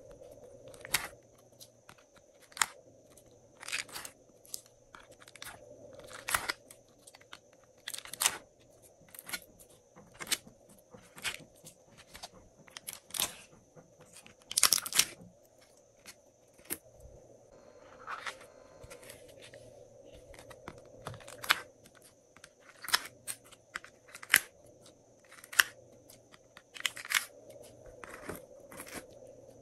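Sticky slime strips being peeled out of the cells of a plastic mould tray: sharp clicks, pops and crackles of slime and flexing plastic, about one a second, irregularly spaced.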